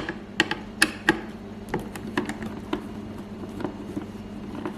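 Irregular light clicks and taps as a screw is worked out of a motherboard's CPU-cooler mounting bracket, several of them coming close together in the first second or so.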